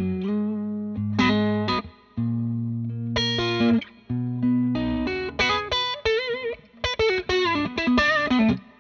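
Electric blues guitar riff played on a Fender Telecaster through a Carvin all-tube amp set for a lightly overdriven rhythm tone. It opens with chords over held low notes in short phrases, then moves into single-note licks with wavy vibrato in the second half, stopping just before the end.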